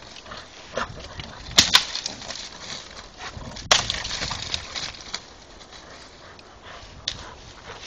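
Dogs jumping and scuffling in dry leaves as they grab and tug at something hanging from a tree branch, with steady rustling and crackling. Sharp snaps come twice in quick succession about a second and a half in, and once more near four seconds in.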